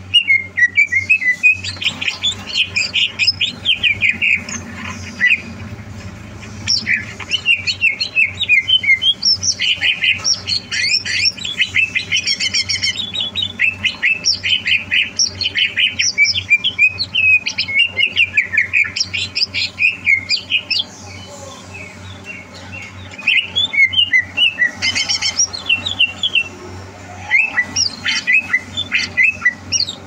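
Greater green leafbird (cucak hijau) singing long runs of rapid, varied chirps and whistles, breaking off briefly twice, over a low steady hum.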